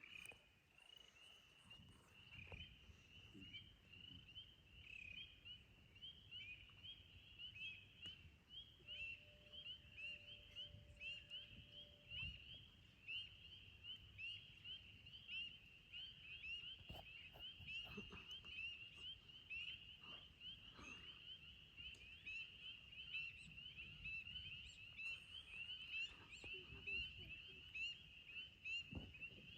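A faint chorus of spring peeper frogs: many overlapping short, high, rising peeps calling without pause.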